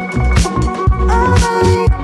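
Background music: an upbeat funk-style track with a steady drum beat.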